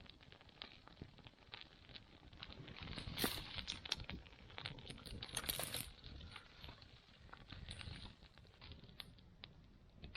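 Small fire of feather sticks and kindling crackling with many quick sharp ticks, broken by two louder rasping bursts about three and five and a half seconds in.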